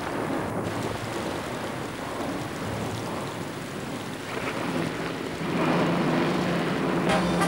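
Heavy rain pouring steadily. A steady low pitched hum joins it about five and a half seconds in.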